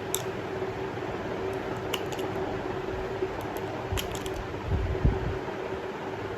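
Steady fan-like hum with a few light metallic clicks about two and four seconds in and a couple of soft knocks near the end: pistol parts being handled and fitted during reassembly.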